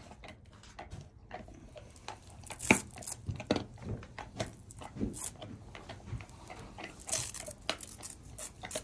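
Adult Great Pyrenees gnawing a bone: irregular crunching and cracking bites, the loudest about three seconds in.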